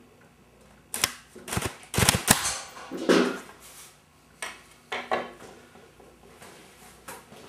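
Scroll-sawn wooden rapid-fire rubber band gun firing off its loaded rubber bands, a rapid string of sharp snaps over about a second and a half. A few wooden knocks follow as the gun is set down on the wooden workbench.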